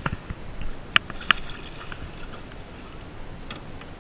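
A hooked baby tarpon splashing at the surface right against the side of a small boat, with water sloshing on the hull. A thump right at the start and two sharp clicks about a third of a second apart about a second in.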